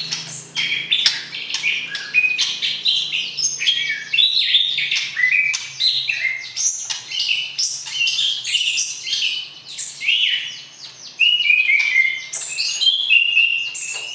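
White-rumped shama (murai batu) singing: a fast, continuous run of varied whistles and chirps sliding up and down. Near the end it settles into a string of short repeated notes on one pitch.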